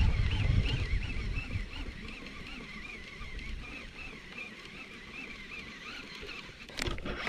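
Low rumbling noise on the microphone that fades away over the first second and a half, under a steady run of faint, high, repeated chirps. A short click near the end.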